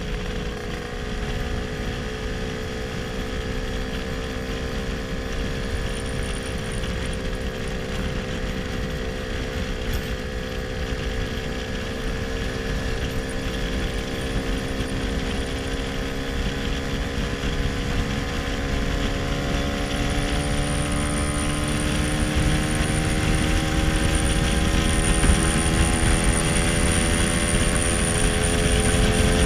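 1966 Lambretta SX 225 two-stroke scooter engine running under way, its note climbing slowly as the scooter gathers speed and getting louder near the end, with wind rush on the microphone.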